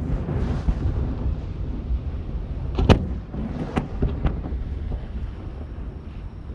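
Fireworks going off: a sharp bang at the start followed by a short hiss, a second loud bang about three seconds in, then a few smaller cracks, over a steady low rumble of wind on the microphone.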